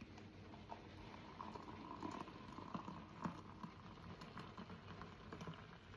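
Boiling water being poured into a mug over drink powder: a faint bubbling trickle with a few small clicks.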